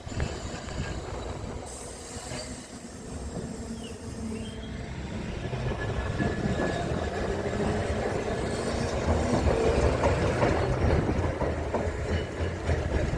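A train running on rails, wheels clattering, growing louder to a peak about ten seconds in and then easing off.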